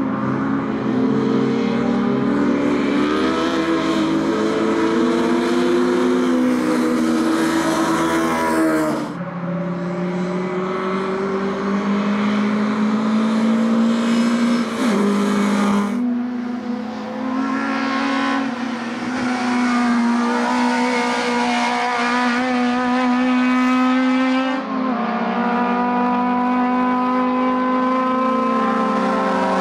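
1300 cc four-cylinder Lada and Samara touring cars racing on a wet track, engines revving up and falling back through gear changes as they pass, over the hiss of tyre spray. The engine note jumps abruptly a few times between passes.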